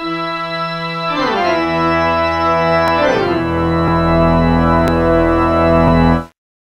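Background music of sustained organ-like chords whose pitch slides downward twice, then cuts off suddenly near the end.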